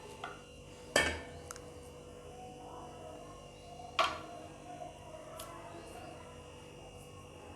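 Two sharp knocks about three seconds apart, with faint handling sounds in between, from dough being portioned out on a kitchen work surface, over a steady faint hum.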